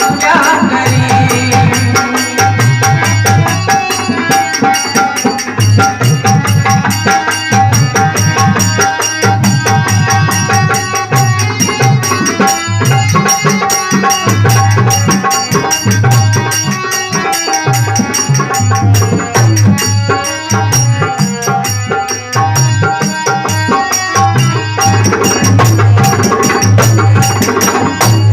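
Instrumental passage of a Hindi Krishna bhajan without singing: a steady hand-drum rhythm with rattle-like percussion under melodic instruments.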